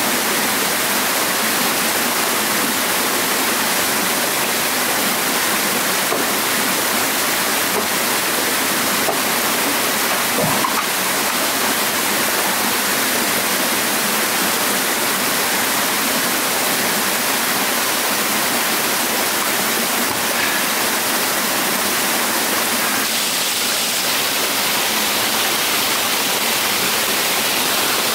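Steady rush of a small waterfall and a rocky stream pouring into a pool, an even unbroken noise of water.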